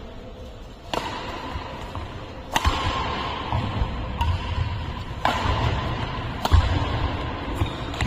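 Badminton rally: rackets strike the shuttlecock with sharp cracks every second or so, mixed with dull thuds of footsteps on the court mat.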